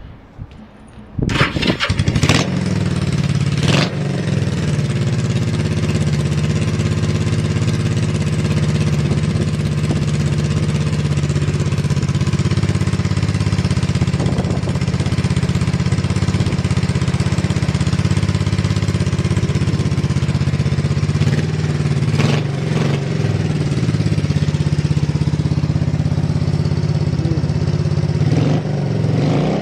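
Kawasaki Z200's single-cylinder four-stroke engine starting about a second in, then idling steadily with a few short clicks along the way. The idle is stable with no abnormal noise.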